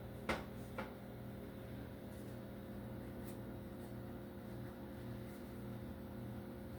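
Steady low hum with two light clicks near the start, from hot dog buns being moved around in a metal baking pan.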